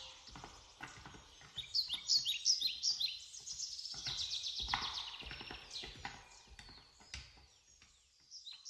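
Songbirds singing outdoors: many quick, high chirps and trills overlapping, busiest from about two to five seconds in, thinning out towards the end.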